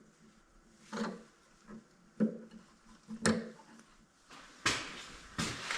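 A few light clunks about a second apart as tools and parts are handled at a lathe, then a scraping rustle near the end.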